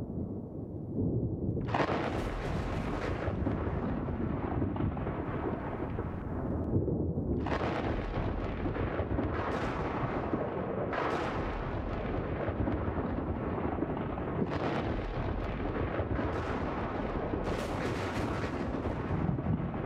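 Booming, rumbling entrance sound effects like thunder and explosions played over an arena sound system. The sound swells in sudden surges every few seconds over a constant low rumble.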